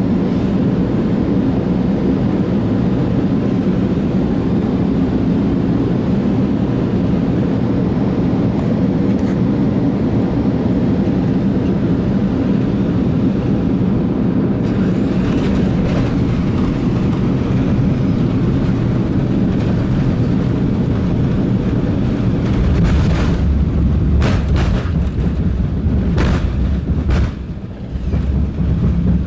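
Cabin noise inside a Boeing 747-8i landing: a steady loud roar of engines and airflow with a low hum, taking on a rougher edge about halfway as the jet meets the runway and rolls out. About two-thirds of the way in a heavier low rumble sets in, with a few short knocks and rattles of the airframe.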